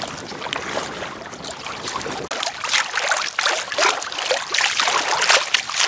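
Choppy lake water splashing and sloshing against an inflatable pack raft, with paddle strokes splashing, in an irregular, uneven stream.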